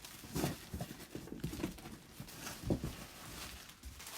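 Handling sounds as items are unpacked from a box: several short rustles and soft knocks of objects and packaging, the loudest about two-thirds of the way through.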